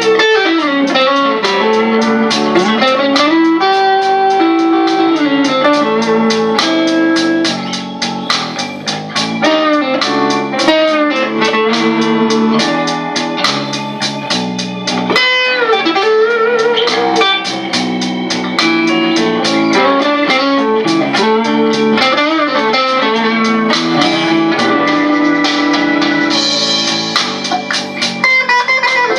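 Fender Squier Stratocaster electric guitar on a crunch overdrive tone, improvising blues lead lines with string bends over a blues backing track.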